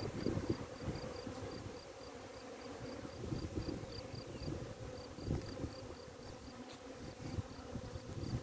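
Honeybees buzzing in a steady hum, with a regular high chirping about three to four times a second and gusty wind rumble on the microphone.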